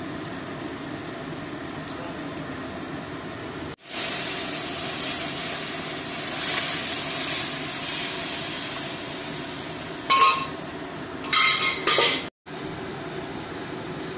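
Pot of sambar simmering on a gas stove with a steady hiss. About ten seconds in, a metal spoon clinks against the pan a few times, sharp and ringing.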